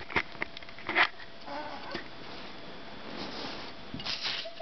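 A few sharp knocks and clicks of handling, a brief high vocal sound from a girl about one and a half seconds in, and breathy straining near the end.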